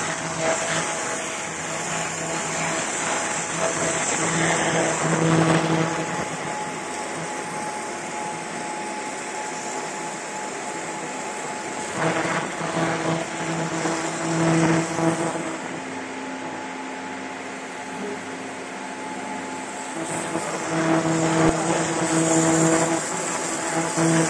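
Galvo fiber laser marking machine cutting through thin metal sheet: a steady buzzing hum with a high hiss, growing louder in stretches as the beam works along the cut.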